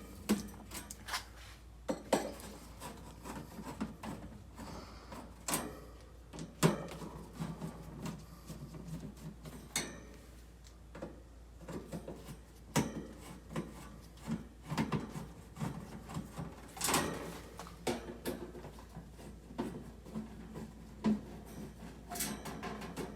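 Irregular clicks, knocks and scraping of hands working on an old window air conditioner's metal housing and parts.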